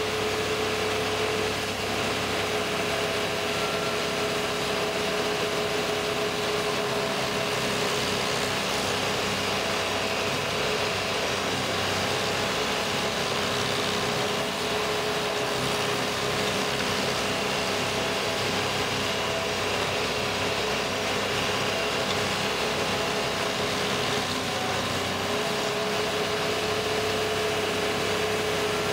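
Vermeer SC352 stump grinder running at a steady, unchanging engine pitch while its cutter wheel grinds into a tree stump and sprays wood chips.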